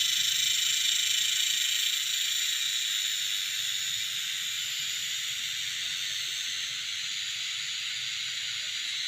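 Cicadas buzzing in a steady, shrill chorus that runs without a break.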